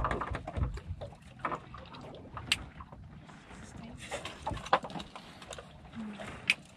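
Small boat rocking on open water: waves slapping the hull, with scattered knocks and clicks on the deck and low thumps near the start.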